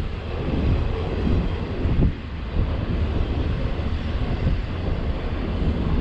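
Double-stack intermodal container freight train rolling past, a steady rumble of wheels on rail, mixed with gusting wind buffeting the microphone.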